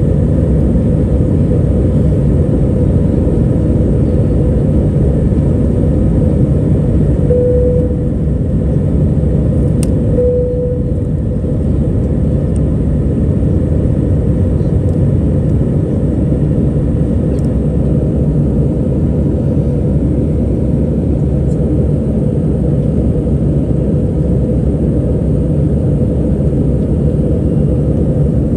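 Steady low roar of an Airbus A321 airliner's jet engines and airflow, heard inside the passenger cabin during the climb after takeoff. Two brief low tones sound about a third of the way in.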